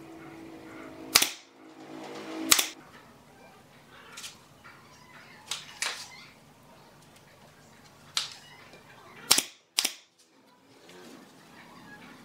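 Battery-powered nail gun firing nails into pine framing, about eight sharp snaps at uneven intervals, the two loudest in the first three seconds.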